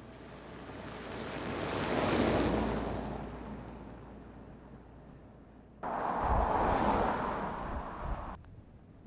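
A new Volkswagen Beetle driving past on an open road: tyre and wind rush that swells as the car passes about two seconds in, then fades. A louder rush of road and wind noise then cuts in abruptly for a couple of seconds and cuts off just as suddenly.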